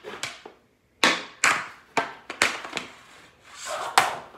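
Hockey stick blade scraping and clacking against a puck on a plastic shooting board: a series of sharp strokes about half a second apart, with a longer scrape building into a harder hit near the end.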